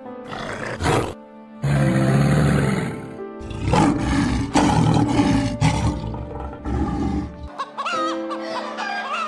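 Over steady background music: a crocodile's low rumbling call in the first three seconds, then a lion roaring from about three and a half seconds in until about seven and a half, then hens clucking near the end.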